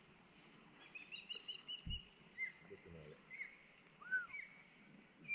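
A songbird calling: a quick run of about six short, high chirps about a second in, followed by a few separate slurred whistled notes. A soft low bump just before two seconds in.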